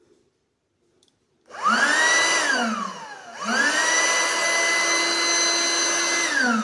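12-volt DC electric air pump inflating an air mattress, run straight off a battery. Its motor whines up to speed about a second and a half in, cuts out and winds down with a falling whine, then starts again and runs steadily before winding down at the very end.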